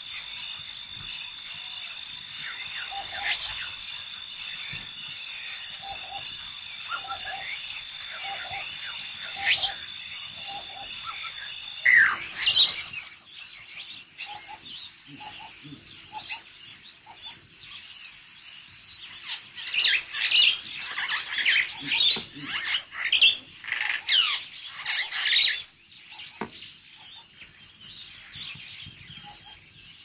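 Frogs croaking in a steady rhythm over a constant high trill, then, about twelve seconds in, a switch to a chorus of small birds chirping and twittering over a steady high drone, busiest in the second half before it thins out.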